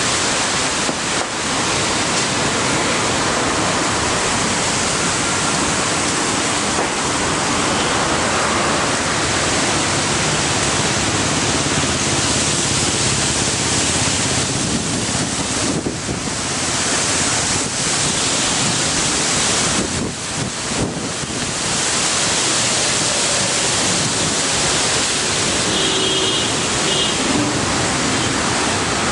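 Strong storm wind rushing through trees and blowing across the camera microphone: a dense, steady noise with a few brief lulls.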